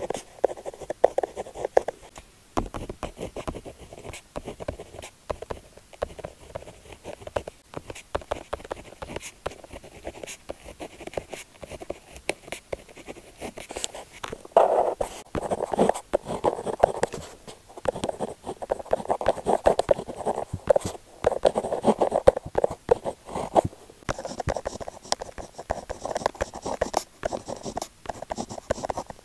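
Retractable rollerball pen writing on paper: a run of scratchy strokes with many small ticks, the strokes growing denser and louder about halfway through.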